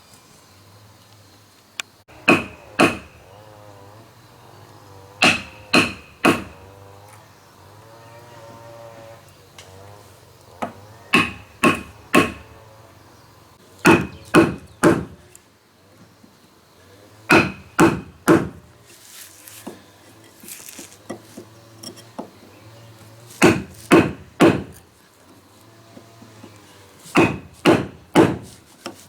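Axe chopping wood: sharp strikes in groups of two or three, about half a second apart, repeating every few seconds.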